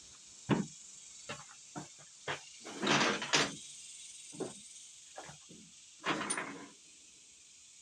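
Hand tools being handled and rummaged through: scattered knocks and clicks, with two longer clattering scrapes about three and six seconds in. A steady high hiss of insects runs underneath.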